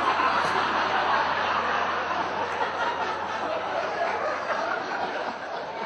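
A theatre audience laughing together: a long, sustained wave of crowd laughter that eases off slightly near the end.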